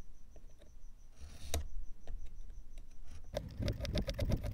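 Hobby knife blade cutting through stiff balsa wood along a steel ruler: a few light scrapes at first, then, a little past three seconds in, a dense run of rapid crackling, scratchy strokes as the blade bites through the wood.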